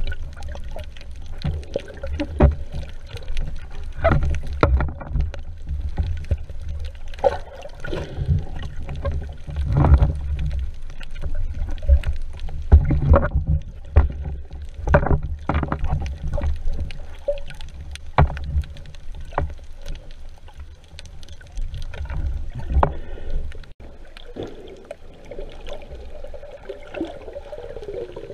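Underwater sound picked up by an action camera in its waterproof housing: a low churning rumble of moving water, broken by irregular knocks and clicks. It turns quieter after a cut about two-thirds of the way through.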